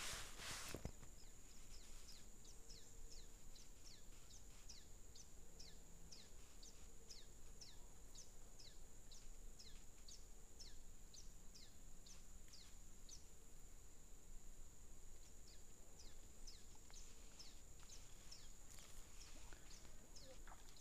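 Faint bird calls: a long run of quick falling notes, about two a second, with a pause a little past the middle. A steady high-pitched insect drone runs under them, with a brief handling noise at the start.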